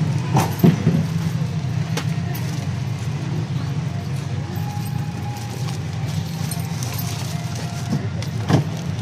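Plastic bags and packaging handled at a food stall, giving short crinkles and clicks, loudest just after the start and again near the end, over a steady low hum.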